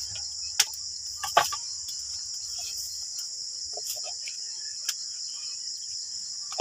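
Steady high chorus of insects chirring, with a few sharp clicks, the two loudest within the first second and a half.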